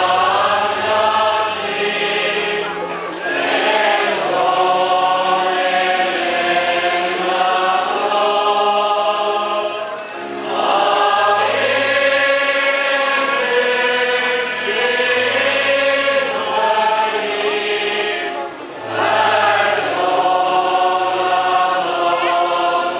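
Large congregation singing a hymn together, slow and unaccompanied by speech, in long-held lines with a short break between lines about every seven to eight seconds.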